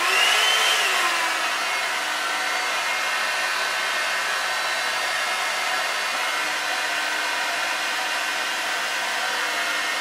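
Knock-off one-step hot air brush dryer switched to its middle setting: the motor's whine swings in pitch over the first second or so as it comes up to speed, then it runs steadily with an even rush of air.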